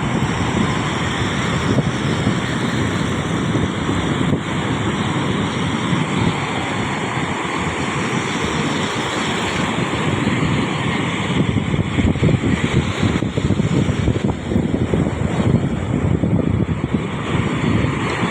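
Wind buffeting the microphone over the steady rush of surf breaking on a beach.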